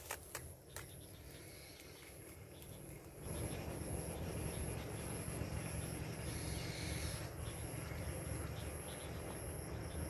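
Insects chirping at dusk: a high, steady pulsed chirp repeating about twice a second. Underneath is a low rumble that rises about three seconds in, with a few clicks near the start.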